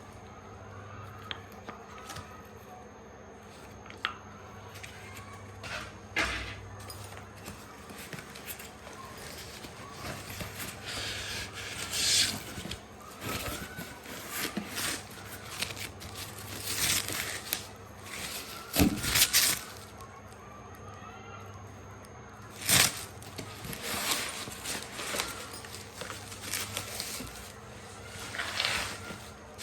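Parcel packaging being handled and opened: irregular rustling and scraping with scattered clicks, and several louder rasping strokes in the second half.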